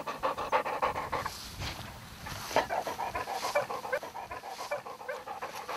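English Pointer dog panting rapidly through an open mouth, fast and even at first, then more irregular.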